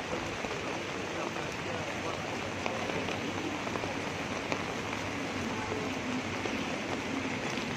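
Heavy rain pouring down onto a wet street, a steady, unbroken hiss.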